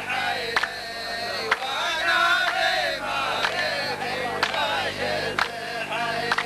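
Rows of men chanting in unison, the saff's sung response in a Saudi muhawara poetry duel, with sharp hand claps about once a second.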